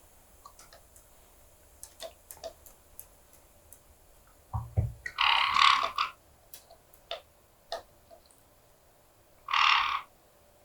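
Parrots giving harsh squawks, twice: one about five seconds in and one near the end. Between the calls there are scattered light clicks and taps, and a dull thump comes just before the first squawk.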